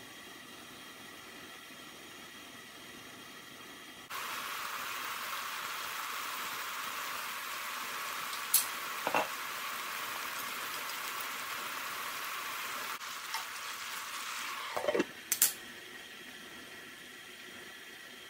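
Chicken thighs and wood ear fungus sizzling in an open pan, a loud steady sizzle that starts suddenly a few seconds in and drops away after about nine seconds. It is broken by a couple of sharp clinks in the middle and a short clatter of clinks near the end. Either side there is only a faint hiss of the covered pan simmering.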